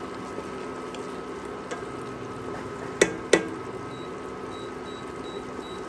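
Pork chops simmering in soy sauce in a wok, a steady soft bubbling hiss. Two sharp clicks about three seconds in.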